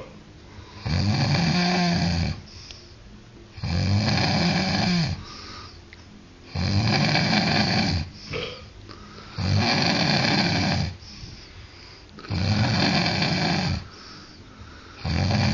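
A person snoring loudly: five long, low snores about every three seconds, each rising and falling in pitch, with quieter gaps between them and a sixth snore starting near the end.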